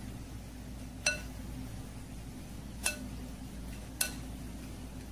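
A bowl and spatula clink three times against a round metal cake tin as chhena poda batter is poured and scraped into it. Each clink is short and rings briefly: about a second in, near three seconds and at four seconds. A steady low hum runs underneath.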